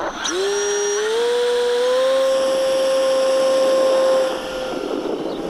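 The RC plane's electric motor and propeller whining under power at launch. The pitch climbs over the first two seconds as it spools up, holds steady, then cuts out about four and a half seconds in, leaving a rushing noise.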